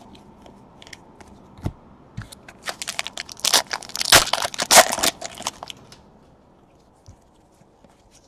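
Wrapper of a Panini Contenders Draft Picks football card pack being torn open and crinkled: a dense burst of crackling starts about two and a half seconds in and lasts about three seconds, with a few soft clicks of cards being handled before and after.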